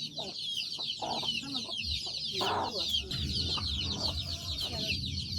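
A flock of native chickens: many chicks peeping without pause in a high, busy chorus, with a hen giving a couple of louder clucks about a second and two and a half seconds in.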